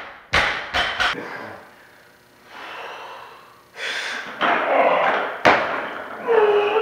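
A dropped barbell with bumper plates bounces and settles on the rubber gym floor, a few quick knocks in the first second. Then a lifter's heavy breathing as he pulls a clean, a sharp thud about five and a half seconds in as the bar is caught in the deep squat, and a strained grunt near the end as he drives up out of it.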